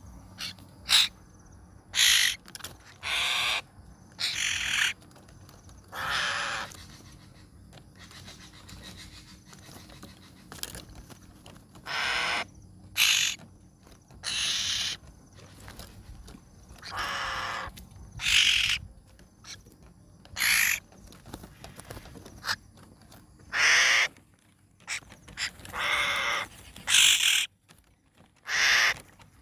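A young 'Hồng Loan' bird calling over and over: harsh, scratchy calls, each about half a second to a second long, coming at irregular intervals with short gaps between them.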